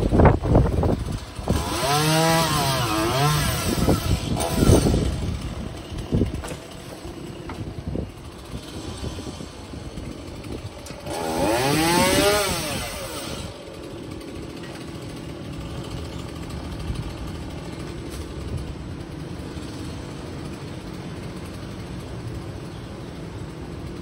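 Stihl chainsaw revving up and down in two bursts, one a couple of seconds in and one around the middle. At the very start, gusty wind rumbles on the microphone.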